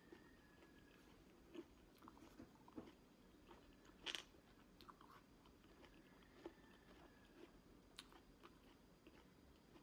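Faint eating sounds of a person biting into and chewing a juicy orange wedge: scattered small wet clicks, with the loudest bite about four seconds in.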